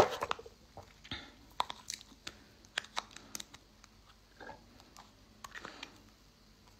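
A plastic cosmetic cream jar being handled and its lid worked open close to the microphone: a run of small, sharp clicks and taps, beginning with a louder knock.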